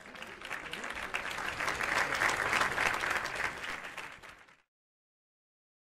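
Crowd applauding, the clapping swelling to a peak and then fading out about four and a half seconds in.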